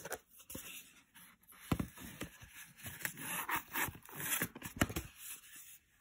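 Paper pattern pages in plastic sleeves being turned and handled, giving an irregular run of rustling and scraping that stops about five seconds in.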